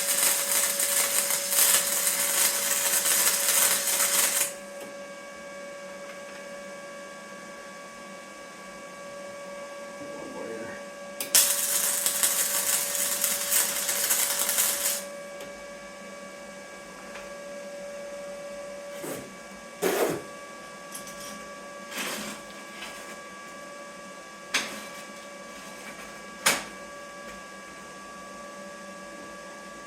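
Flux-core wire welder laying two short welds, each a steady crackle lasting about four seconds, the second starting about eleven seconds in. A few short knocks on the metal follow later.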